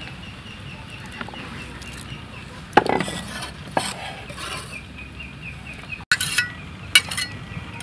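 Metal cleaver clattering and scraping against a wooden chopping block and the chopped chillies, with a few sharp knocks. The loudest knock comes about three seconds in.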